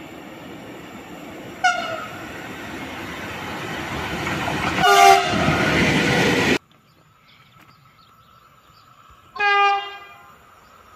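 Train horns: a short blast as a freight train approaches, with the rumble of the train growing louder. A second brief blast comes about five seconds in as the wagons rush past. After a sudden cut to a quieter scene, another short horn blast sounds near the end.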